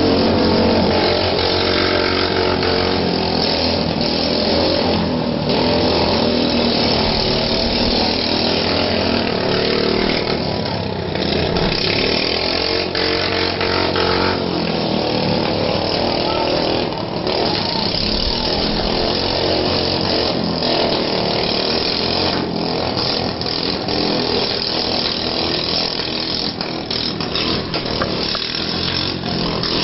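Riding lawnmower engines running hard and unevenly, with a few brief sharp knocks.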